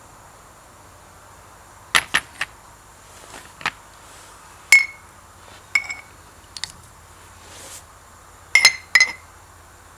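Metal parts and tools being handled on a workbench: irregular sharp clinks and knocks, several with a short metallic ring, over a faint steady hum.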